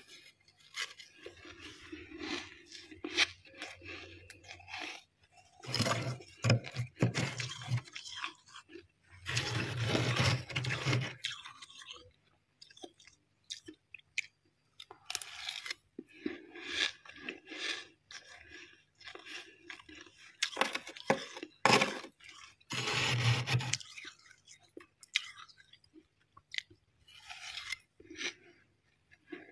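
Thick freezer frost crunching as it is scraped loose and broken into chunks. There are many short crunches, with louder bursts of a second or two about six and ten seconds in and twice past twenty seconds.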